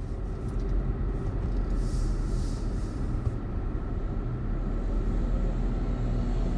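Steady road and engine rumble heard inside a moving car's cabin, with a brief hiss about two seconds in.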